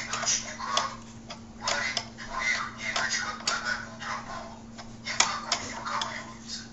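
Irregular metal clicks and light rattling as a nut is worked along a threaded steel rod to set the height of a puppy feeding stand, with some rustling between the clicks. A steady low hum runs underneath.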